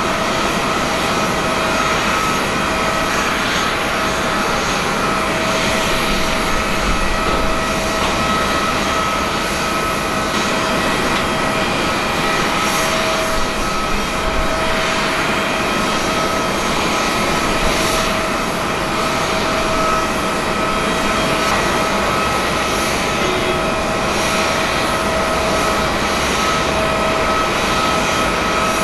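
Jet engines of an Airbus A320neo (A320-271N) running at a steady, unchanging pitch: an even jet roar with a continuous high whine over it.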